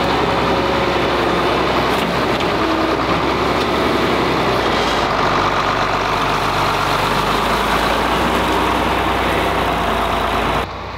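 Large farm tractor's engine running steadily at a constant speed.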